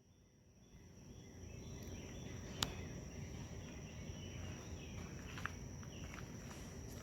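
Quiet outdoor ambience with a steady high-pitched insect drone. A single sharp click comes about two and a half seconds in, with a few faint ticks later.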